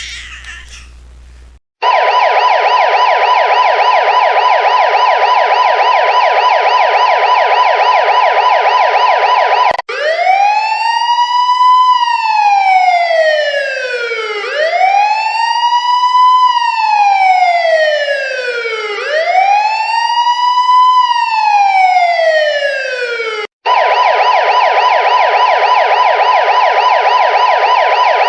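Siren ringtone: a fast, steady warbling yelp, then three slow wails that rise quickly and fall away over a few seconds each, then the fast yelp again.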